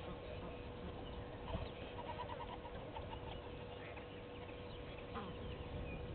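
Wild outdoor ambience: scattered short bird calls, with a quick run of repeated chirps about two seconds in, over insect noise and a steady hum.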